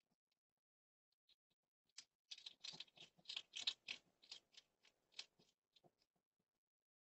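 Hedgehog eating from a dish: a quick, irregular run of crisp clicks and crunches starting about two seconds in and lasting about three and a half seconds, then a few scattered clicks.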